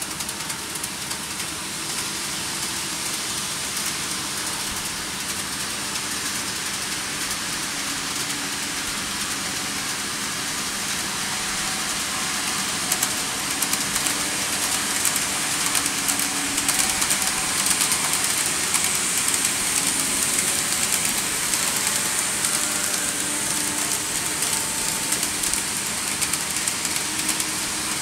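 N-gauge model trains, among them a KATO 115-series set, running on layout track. It is a steady rolling rattle of metal wheels with many fine clicks, growing louder from about twelve seconds in as a train passes close.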